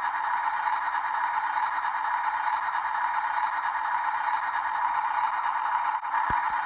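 Small electric motors and plastic gearboxes of radio-controlled toy construction vehicles whirring steadily with a light rattle, broken briefly about six seconds in.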